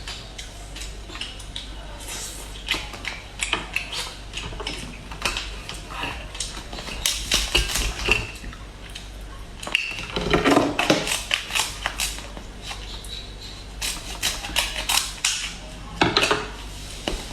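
King crab legs being cracked open and eaten, with many sharp shell cracks and clicks and some clatter of dishes. There is a denser, louder stretch about ten seconds in.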